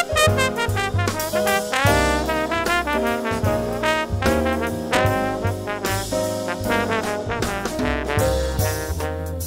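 Background jazz music led by brass horns, with sliding and quick-changing notes over a steady bass line.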